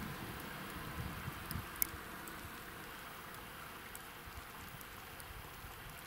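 Steady hiss of open river water, with low wind buffeting on the microphone and a few faint sharp ticks, the most marked about two seconds in.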